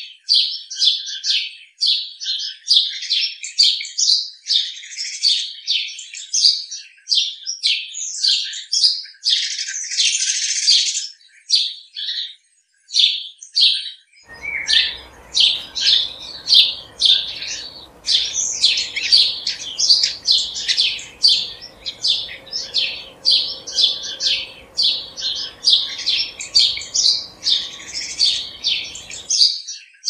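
Small birds chirping and tweeting without pause, many short high-pitched calls a second, with a denser burst of chatter around ten seconds in and a brief lull a couple of seconds later.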